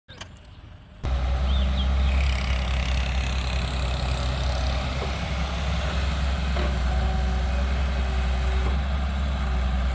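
Heavy vehicle engine running steadily at an even low pitch, coming in about a second in after a quieter start.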